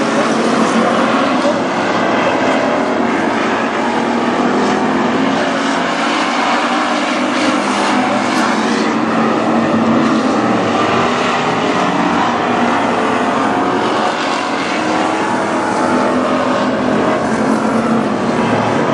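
A pack of WISSOTA street stock race cars with V8 engines racing laps on a dirt oval. It is a continuous, loud mix of several engines at once, their overlapping pitches wavering up and down as the cars go around.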